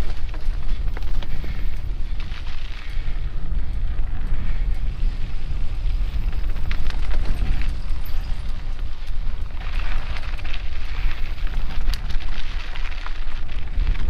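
Wind rushing over the microphone of a mountain bike ride camera, a steady heavy rumble, with the tyres rolling over a dry, leaf-covered dirt trail and scattered sharp clicks and rattles from the bike.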